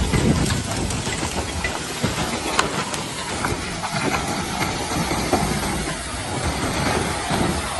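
Advancing blocky lava flow front on La Palma's erupting Cumbre Vieja volcano: a steady hiss of venting steam with scattered crackles and clinks as cooling lava blocks break and tumble, one sharper crack about two and a half seconds in.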